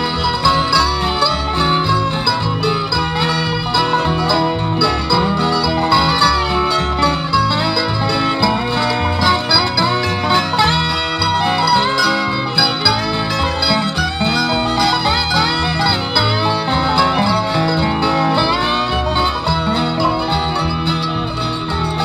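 Acoustic folk string band playing an instrumental break between sung verses, with plucked strings over a steady bass line.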